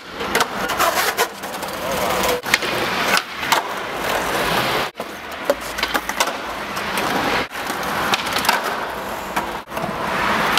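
Skateboard wheels rolling on concrete pavement, with sharp snaps and clatters as the board is popped, flips and lands during flatground flip tricks. The sound comes in several short stretches that break off suddenly.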